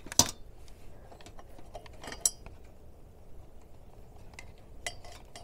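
Scattered clicks and light knocks from adjustable parts of a ring light stand and mount being handled and repositioned by hand. The sharpest click comes just after the start, another about two seconds in, and a few fainter taps follow.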